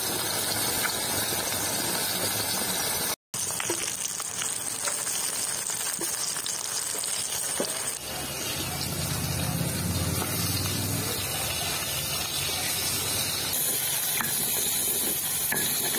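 Rui fish steaks sizzling in hot oil in an iron kadai, a steady hiss with small spits and crackles. The sound cuts out for a moment about three seconds in. Near the end comes the scrape of a stone grinder on a grinding slab, working roasted cumin.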